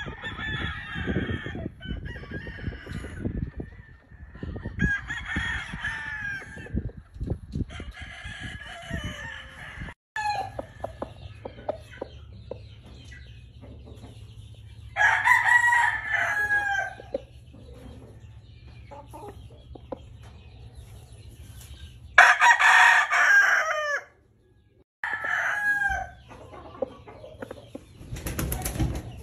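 Roosters crowing, about five crows spaced through the stretch, the loudest about halfway through and near the end, with clucking from other chickens in between.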